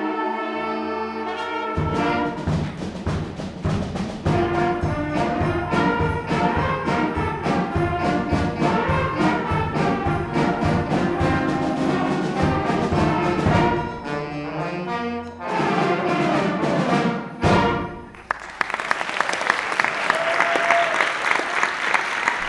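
Middle school concert band playing the closing bars of a holiday medley, brass over a steady drum beat, ending on a final hit about eighteen seconds in. The audience then breaks into applause.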